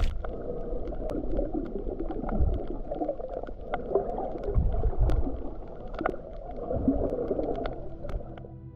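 Muffled sloshing and gurgling of water, with scattered small clicks and low thumps. Quiet music comes in near the end.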